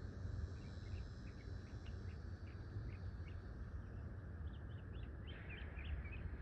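A bird chirping in a run of short, high chirps, busier in the last couple of seconds, over a steady low rumble of outdoor ambience.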